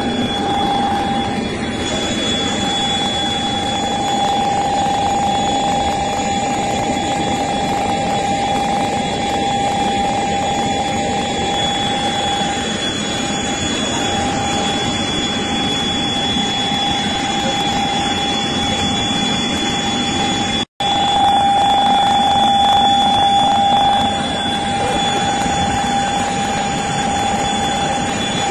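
Jet aircraft turbine running: a steady rushing noise with a constant high whine. It cuts out for an instant about two-thirds of the way through and is a little louder for a few seconds after.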